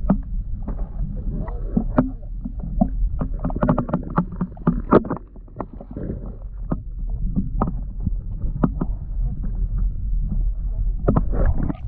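Muffled water sloshing and bumping around a camera held just under the sea surface, with frequent sharp knocks over a steady low rumble.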